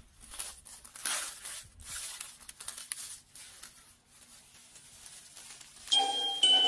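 Soft, irregular crinkling and rustling noise. About six seconds in, electronic music starts with bright, bell-like chime notes.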